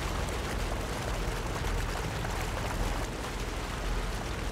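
Water gushing out of a large pipe outlet onto the street: a steady rushing noise with a strong low rumble underneath.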